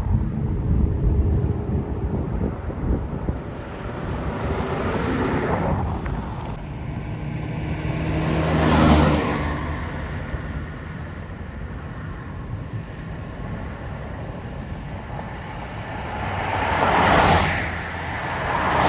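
Road traffic noise: a steady low vehicle rumble, with vehicles swishing past three times, swelling and fading, about halfway through, near the end and again at the very end.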